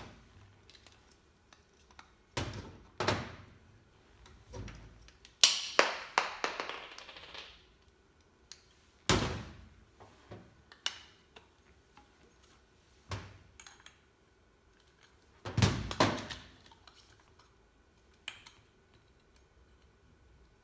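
Angled hand PEX crimping tool with a 1-inch die set being worked on a 1-inch PEX fitting: a string of separate metal clicks and clunks, the loudest about five seconds in with a rattling tail, and another pair about fifteen seconds in.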